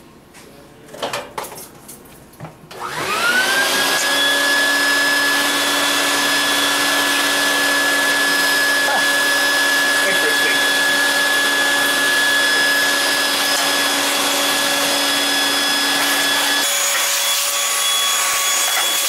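Shop vac switched on about three seconds in, its motor whine rising quickly to a steady pitch and running loudly; near the end its tone shifts abruptly.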